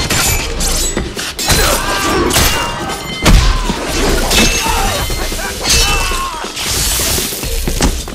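Movie fight sound effects: a rapid string of blows, thuds and sword swings, with short ringing tones, over low pounding music.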